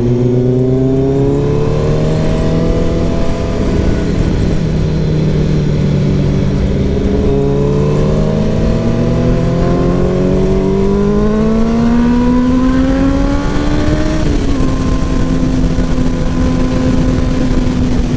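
Kawasaki Ninja ZX-10R's inline-four engine under way, its pitch climbing for about three seconds, dropping, climbing again for about six seconds from about eight seconds in, then falling back about fourteen seconds in and holding steady.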